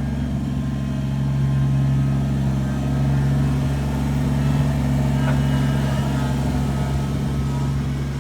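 A vehicle engine running steadily with an even low hum, hauling a load of sand.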